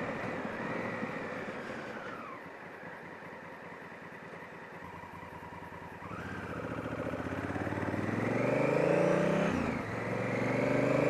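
Honda Africa Twin motorcycle engine slowing and running quietly, then accelerating from about halfway through, its pitch rising, with a short drop near the end as the gear changes before it pulls again. Heard from the rider's helmet microphone, with road and wind noise.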